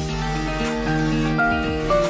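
Background instrumental music: held notes changing pitch over a steady low bass.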